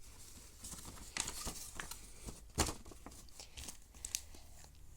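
Paper rustling and crinkling as a handmade paper box is handled, with scattered sharp clicks and taps, the loudest about two and a half seconds in.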